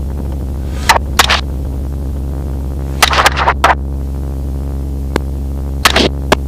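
A series of suppressed rifle shots fired from a helicopter, about nine in irregular groups of two to four, over the steady drone of the Robinson R44 helicopter's engine and rotor.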